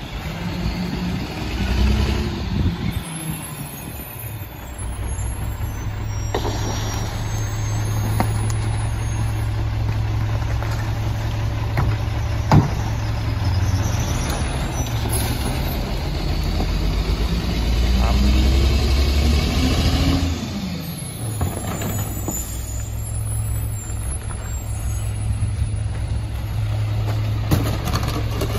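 Mack MR garbage truck's diesel engine running at idle, revving up steadily for several seconds past the middle and dropping abruptly back to idle. A few sharp knocks are heard as trash cans and bags are emptied into the McNeilus rear-loader hopper.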